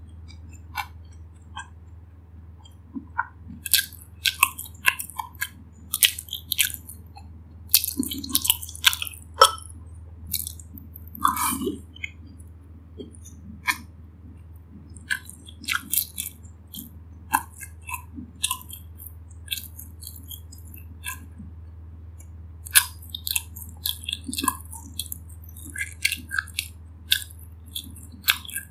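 Close-miked chewing and biting of pan-fried gyoza with browned, crisp bottoms: irregular crunches, wet mouth clicks and smacks. A steady low hum runs underneath.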